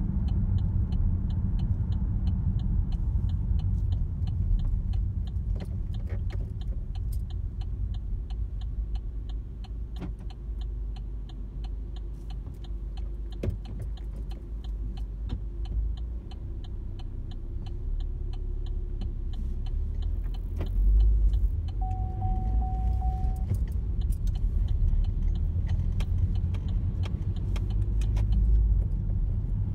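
Car cabin road and engine rumble while driving in town traffic, with a steady light ticking of about three ticks a second and a brief single-tone beep about two thirds of the way in.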